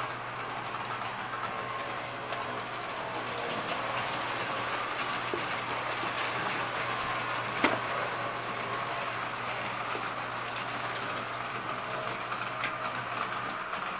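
S-gauge model trains running on a loop of sectional track: a steady rattle of wheels over the rail joints under a low hum, which drops out just before the end. A single sharp click comes about seven and a half seconds in.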